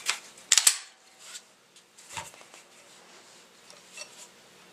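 Sharp mechanical clicks and light knocks from handling a Glock 22 pistol and a digital trigger pull gauge: a quick cluster of clicks about half a second in, a few faint knocks, and one sharp ringing click at the very end.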